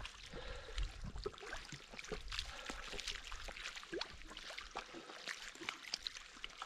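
Faint, irregular small splashes and drips of shallow water at the bank.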